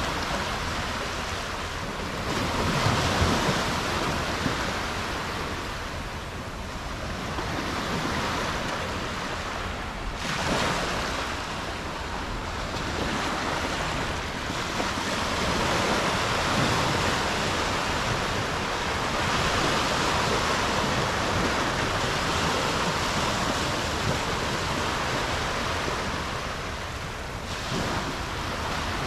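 Sea waves washing onto a beach, the rush of surf swelling and easing every few seconds.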